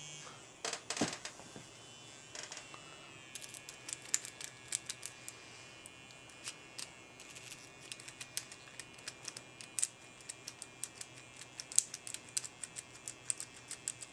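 Rapid, irregular sharp metallic clicks of a vibrating hacksaw-blade pick rattling against the pins inside a Master padlock, over the faint steady buzz of the electric toothbrush driving the pick. The clicks come sparsely at first and grow dense from about three seconds in.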